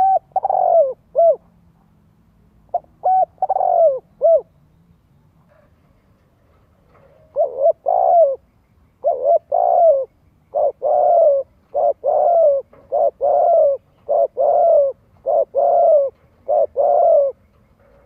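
Spotted dove cooing: two short phrases of coos, then after a pause of a few seconds a long run of repeated coos, about two a second, each note dropping slightly in pitch.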